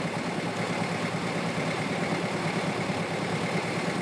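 An engine running steadily, a constant drone.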